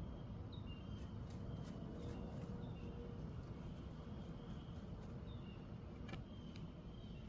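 Backyard outdoor ambience: short high bird chirps repeat over a steady low rumble. Scattered sharp ticks and scratches come between about one and two and a half seconds in, and again about six seconds in.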